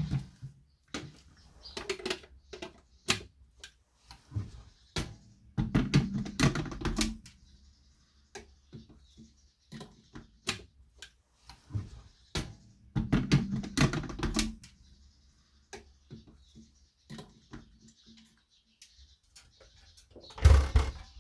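Irregular clicks and knocks of objects being handled, with three busier bursts of clatter about six, thirteen and twenty seconds in.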